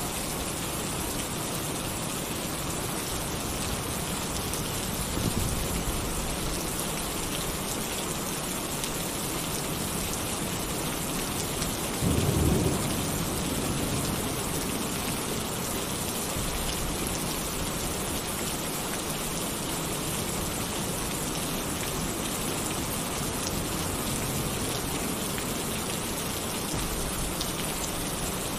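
Heavy rain pouring steadily on a tin roof, with low thunder rumbles: a soft one about five seconds in and a stronger, short one about twelve seconds in.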